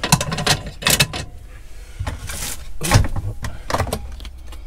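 Handling noises at a kitchen counter: a quick series of knocks and clicks, a short rustle about two seconds in and a heavier knock about a second later, as a bottle of vegetable oil is picked up and its screw cap worked open.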